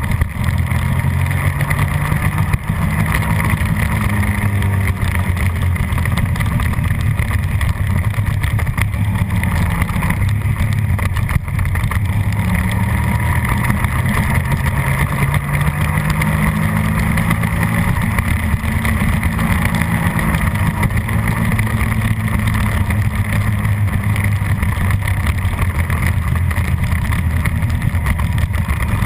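Suzuki SV650's 90-degree V-twin engine running hard under race load, its revs climbing and falling repeatedly as the bike accelerates and slows through the corners.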